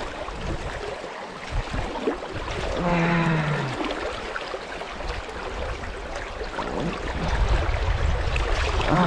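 Creek water rushing steadily, with a low rumble that grows stronger near the end and a brief low hum about three seconds in.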